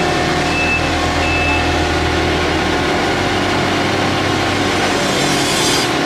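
Large engine running steadily, from the tree crew's truck and wood chipper rig.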